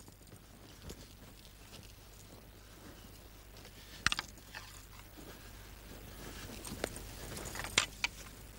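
Wooden spear shafts clacking against each other as two fighters spar. There are a few sharp knocks, one about four seconds in and a couple more near the end, over a faint steady hum.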